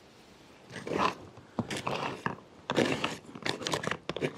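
Small spoon stirring freeze-dried chicken carbonara and just-poured hot water inside a stand-up food pouch: irregular scraping strokes and crinkling of the pouch, starting about a second in.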